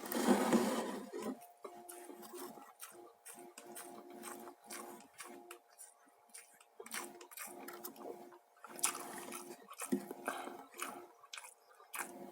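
A person chewing and smacking close to the microphone while eating rice with fried tofu: a string of small, irregular wet mouth clicks, a little louder in the first second or so.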